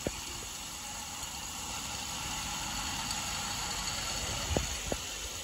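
An engine running steadily, swelling slightly mid-way, with two sharp knocks near the end.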